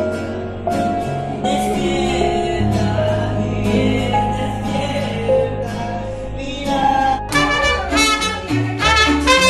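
Singing with an acoustic guitar; about seven seconds in it cuts abruptly to a mariachi band, trumpets playing a bright, rhythmic tune.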